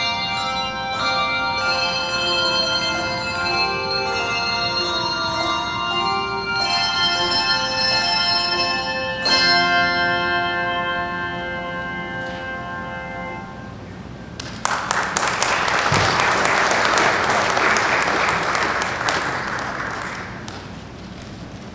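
Handbell choir playing, struck bell notes ringing on and dying away after a last chord about ten seconds in, then a congregation applauding for several seconds.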